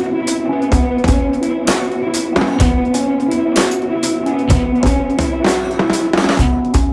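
Music with a steady drum-kit beat: kick-drum thumps, snare hits and a short repeating melodic phrase.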